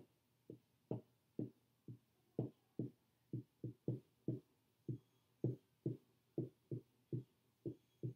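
Dry-erase marker tapping and stroking on a whiteboard as tick marks and numbers are drawn: a steady series of short, dull taps, about two a second.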